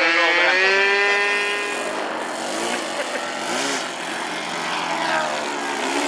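Radio-controlled trainer plane's motor and propeller running, high and steady for about two seconds, then dropping lower with a few short throttle blips, and climbing again near the end.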